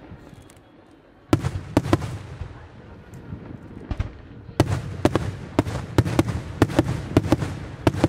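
Senatore Fireworks aerial shells bursting in the night sky. After a lull, a few sharp bangs come about a second in, then a quick run of bangs from about halfway on, each trailed by a low rumble.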